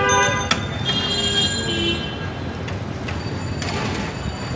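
High metallic squeal and ringing of a steel serving bowl scraping inside a large aluminium cooking pot, with a sharp clank about half a second in and a second, thinner squeal from about one to two seconds in.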